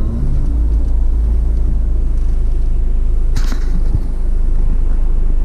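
Steady low rumble of wind and road noise on a moving action camera, with a brief hiss about three and a half seconds in.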